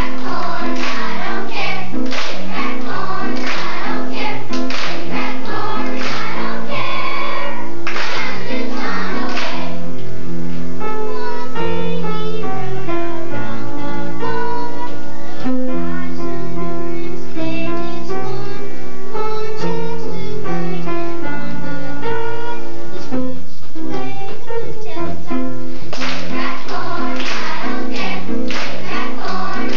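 Children's choir singing a song with accompaniment, the children clapping along in rhythm for the first ten seconds or so and again near the end; the middle stretch is melody without clapping.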